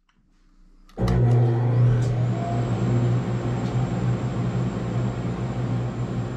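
Band saw running steadily: a motor hum with a thin high whine above it, cutting in abruptly about a second in.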